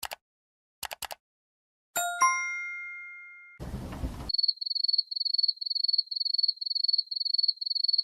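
A few computer mouse clicks, then a bright two-note 'correct answer' chime that rings and fades, then a short burst of noise. After that come crickets chirping in a steady high trill, pulsing about two to three times a second.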